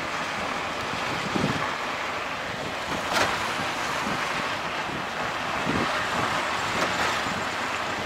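Wind buffeting the microphone over the running engine and road noise of a moving auto-rickshaw, with a few knocks from bumps in the road, the sharpest about three seconds in.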